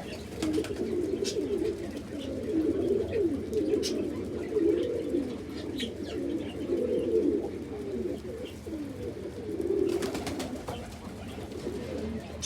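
Several domestic pigeons cooing continuously, their calls overlapping, with a few short clicks here and there and a cluster of them near the end.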